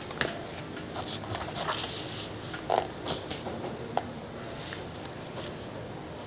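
Faint handling sounds of a card-game box and its contents: light rustling with a few small knocks and clicks, the loudest a little under three seconds in.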